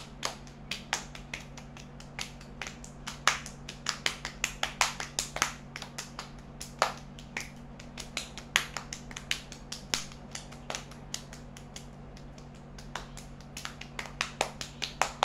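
Hands clapping and slapping against each other in a fast two-person clapping game: a quick, uneven run of sharp claps, several a second, with a short lull about three quarters of the way through. A faint steady low hum runs underneath.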